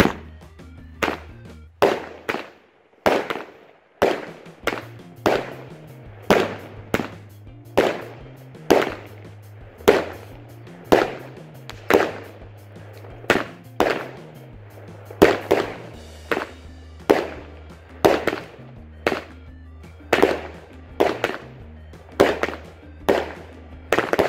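Consumer firework battery (cake) firing a long run of shots and bursts, one bang every half second to a second, with background music and a steady beat under it.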